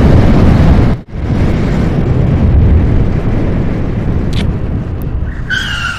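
Wind rumbling hard on the microphone of a motorcycle riding at speed, loud and low, with a brief break about a second in. Near the end a steady high tone comes in over it.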